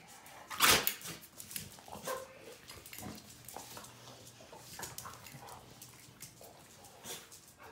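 Two dogs moving about on a concrete floor, making short faint dog sounds, with a loud knock just under a second in.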